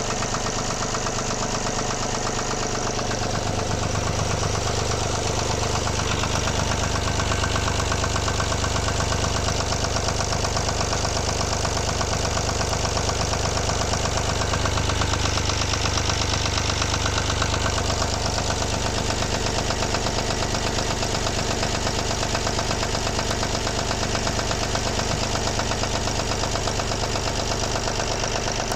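Volvo D17C diesel engine running steadily at idle with a fast, even beat. Its low note grows a little stronger about three seconds in and eases back near the eighteen-second mark.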